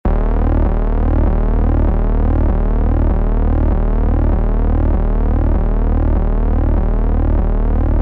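Electronic background music: a steady synthesizer drone over a deep bass note, with sweeping tones that repeat at an even pace.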